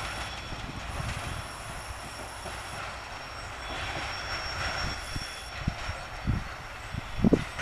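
Weedspray train's wagons rolling away on the rails: a steady rumble of wheels on track, with a few low knocks near the end.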